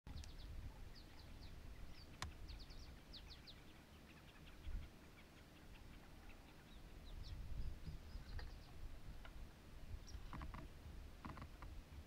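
Faint chirping of small birds, many short high calls falling in pitch, thinning out after about eight seconds, over a low rumble, with a few short clicks near the end.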